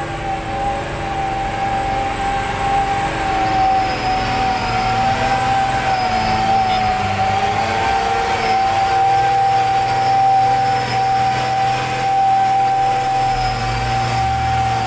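Hino 500 dump truck diesel engine labouring in slippery red mud, its note rising and falling with the throttle, with a constant high whine over it. The low rumble swells in the last couple of seconds.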